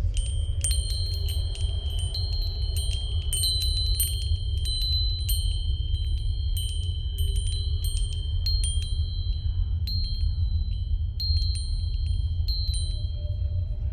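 Chimes tinkling in irregular clusters of high, ringing strikes whose tones linger, over a steady deep rumble.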